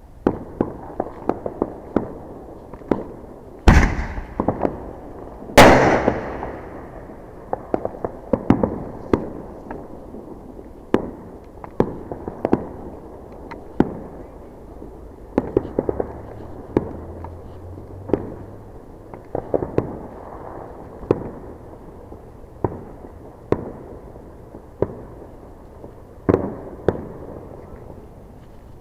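Fireworks going off: a steady run of sharp pops and crackles, with two much louder bangs about four and six seconds in, the second trailing off slowly.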